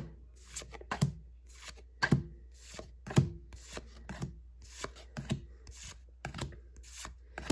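Pokémon trading cards being slid one at a time off a small hand-held stack: a short papery scrape with each card, irregular at about one or two a second.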